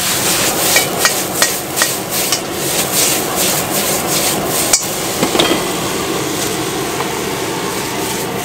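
Metal ladle clanking and scraping against a wok as vegetables are stir-fried and tossed, sharp knocks coming about twice a second for the first half or so, then fewer. Under it, a steady hiss of the gas burner and sizzling food.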